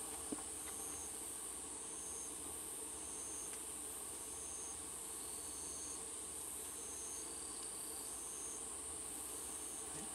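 Night insects in the grass: one keeps up a steady high trill while another gives short, high chirps about once a second.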